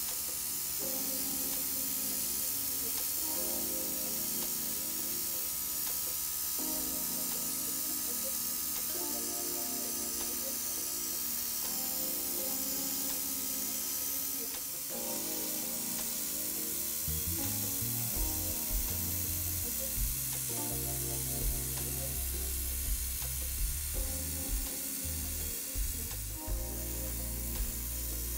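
Airbrush spraying paint, a steady hiss, over background music whose deep beat comes in a little past halfway.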